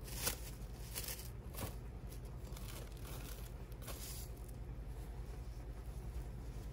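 Plastic cling wrap crinkling and rustling as it is stretched and smoothed over a stainless steel mixing bowl, in a string of short crackles that die down after about four seconds.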